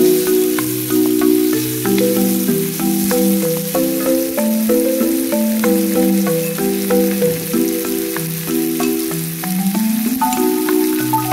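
Instrumental background music playing a stepping melody over the steady sizzle of onion, pineapple and garlic frying in a wok.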